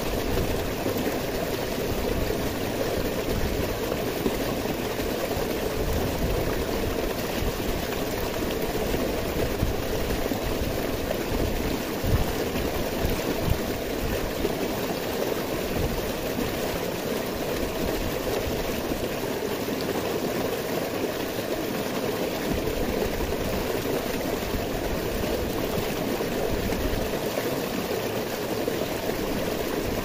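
Stream water rushing and splashing over boulders in a small cascade, a steady unbroken rush.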